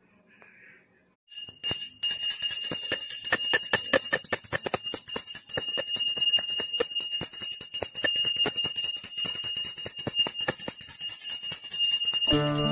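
Brass puja hand bell rung steadily during aarti, starting about a second in, its clapper striking about four or five times a second with a sustained high ring. Background music comes in near the end.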